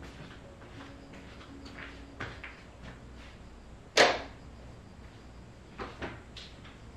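A person moving about a room: light taps and rustling, one sharp knock about four seconds in, and two softer knocks a little later.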